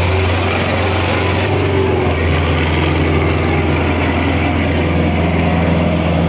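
Sonalika DI 750 tractor's diesel engine running hard under heavy load as it drags a double harrow, a loud steady drone whose note changes a little about two seconds in. The thick black exhaust smoke marks it as working near full throttle.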